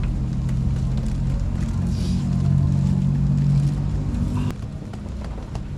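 A loud, steady low hum that cuts off suddenly about four and a half seconds in, with faint clicks over it.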